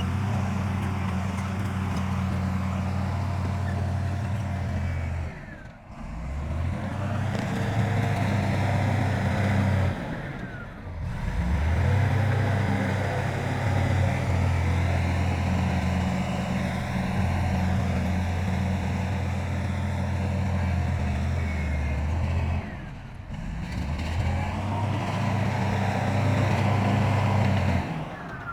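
Diesel engines of heavy earthmoving machines running with a steady low hum. The sound breaks off briefly three times and picks up again at a slightly different pitch.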